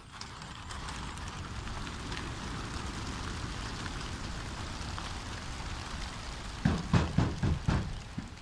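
A large flock of racing pigeons bursting out of a transport truck's crates at once: a dense, steady clatter of hundreds of wingbeats. Near the end, several loud thumps.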